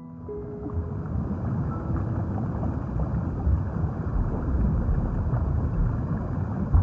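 Muffled underwater water noise: a steady low rumble with fine crackle. It cuts off suddenly at the end.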